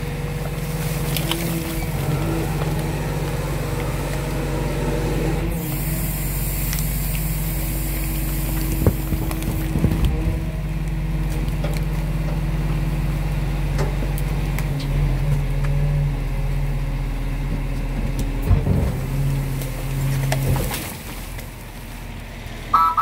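Garbage truck's diesel engine running steadily while its rear-loader compactor crushes bags of diapers in the hopper. About five seconds in, a loud hiss lasts roughly four seconds, with a few knocks as the load is packed and a short beep at the very end.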